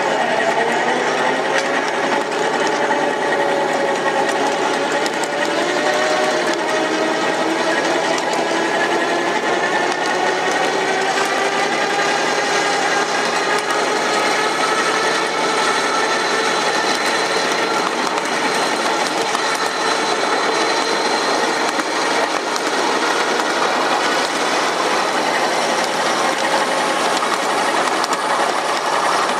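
A 7.5-inch gauge box cab locomotive running along track: a steady rapid mechanical clatter of wheels and running gear, with a thin drive whine that slowly rises in pitch as it gathers speed.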